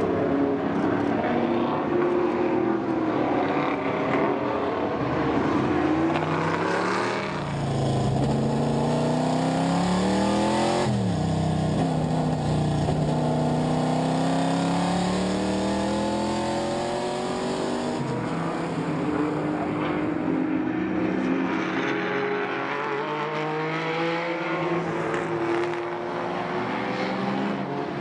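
Historic racing car engines at full throttle as a pack of cars goes by. Then one engine dominates, revving up through the gears: its pitch climbs steadily and drops back at each gear change.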